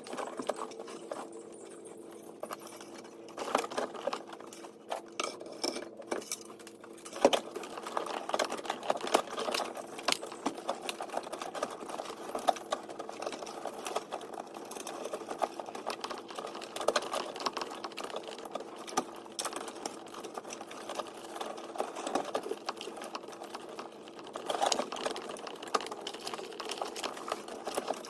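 Dense, irregular clicking and rattling of hand tools, clips and wiring being worked loose in a car, over a steady hum.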